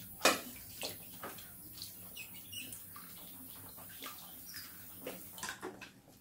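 Mice swimming and thrashing in shallow water in a plastic paddling pool, making irregular splashes and sloshes, the loudest about a quarter second in.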